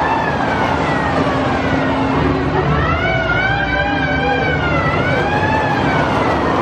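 Riders on a Fire Ball loop ride screaming, several voices gliding up and down in long arcs, over the steady rushing noise of the ride running.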